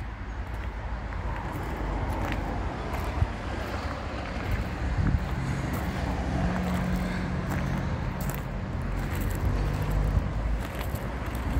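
Volkswagen Golf 2.0 TDI four-cylinder diesel idling steadily, its hum clearer from about five seconds in, with wind rumbling on the microphone.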